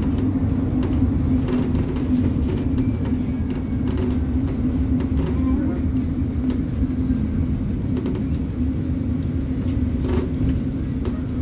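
City bus in motion, heard from inside the cabin: a steady low drone of engine and road noise, with faint clicks now and then.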